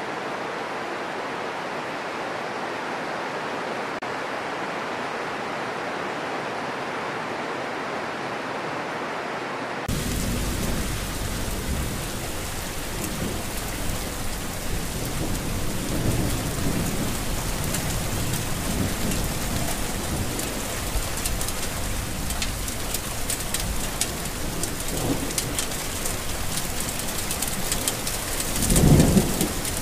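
Steady hiss of rain; about a third of the way through it cuts abruptly to heavier rain with low rumbles of thunder, and a louder peal of thunder near the end.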